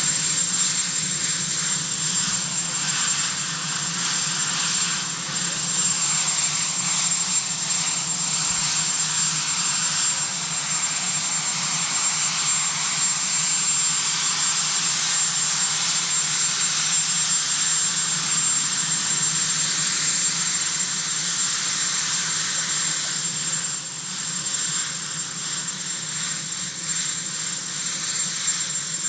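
Marine One, a Sikorsky VH-3D helicopter, running on the ground with its twin turbine engines turning over steadily, a continuous rushing noise with a steady high whine.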